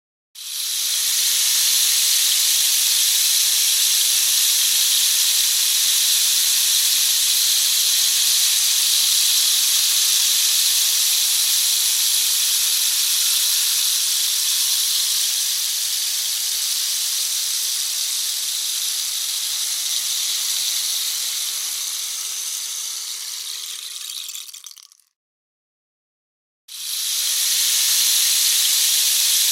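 Rain stick turned over, its filling trickling down inside in a long, even, rain-like hiss that thins out and stops about 25 seconds in. After a short pause it is turned again and a second pour begins.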